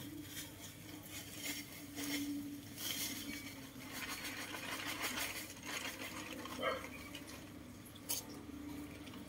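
Footsteps of a person in rubber flip-flops on grass and brick edging: scattered soft slaps and scuffs at an uneven pace. A faint low hum in the background comes and goes.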